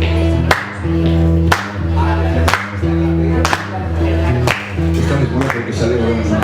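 Live band playing a song: sustained bass and chords under a steady beat with a sharp hit about once a second.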